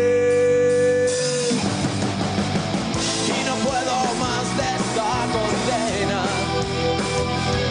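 Rock band playing live, with electric guitar, bass and drum kit under a male lead vocal. The singer holds one long note that ends about a second and a half in, and then keeps singing over the full band.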